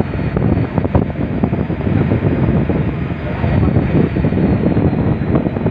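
Wind blowing across the phone's microphone, a loud, gusty low rumble.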